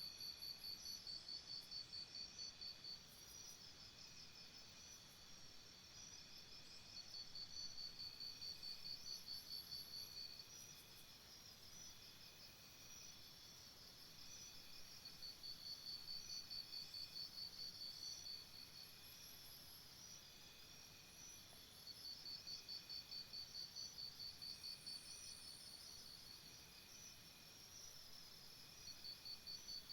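Jungle insects chirping in faint, high, rapidly pulsed trills. The trills come in bouts of about three seconds, roughly every seven seconds, over a fainter steady high insect chorus.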